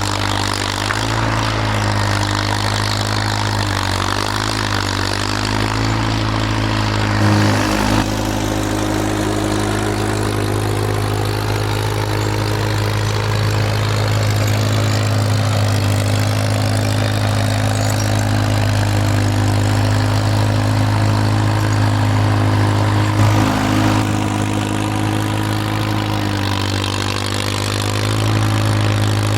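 Farmall M tractor's four-cylinder engine running steadily while pushing snow, its note shifting a few times as the load changes.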